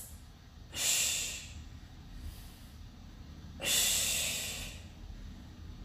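A woman's forceful exhales, two of them about three seconds apart, breathing out with the effort at the top of each single-leg tuck sit-up.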